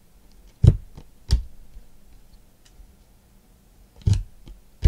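Basketball trading cards being handled and flipped through by hand, with two sharp taps less than a second apart in the first second and a half, another near the end, and a few faint ticks over a low steady hum.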